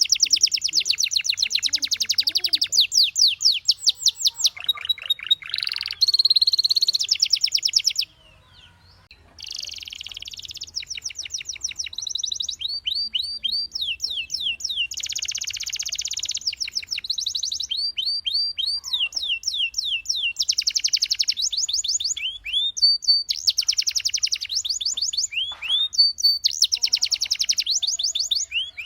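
Domestic canary singing: rapid trills of quickly repeated high notes in runs of changing speed, broken by a brief pause about eight seconds in.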